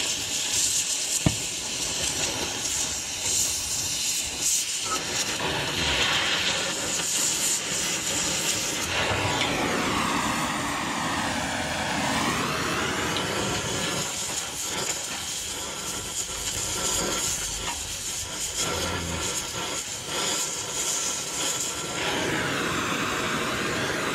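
Gas welding torch flame hissing steadily while welding steel, with a whooshing sweep in its tone about ten seconds in and again near the end.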